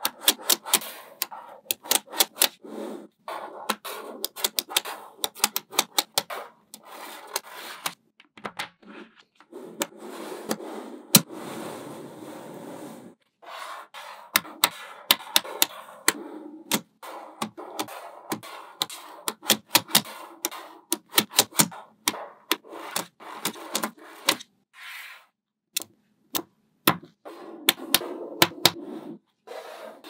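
Small magnetic balls clicking sharply as they snap onto one another in quick, irregular runs. Between runs come stretches of balls rubbing and rolling against each other.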